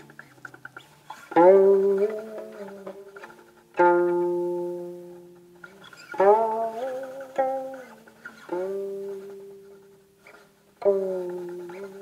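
Guqin played solo, slow and sparse: five single plucked notes, each left to ring and fade, with the pitch of several sliding and stepping while they still sound as the left hand glides along the string.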